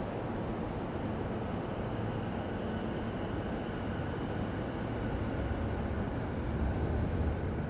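Low rumble of a train on the tracks, swelling a little near the end.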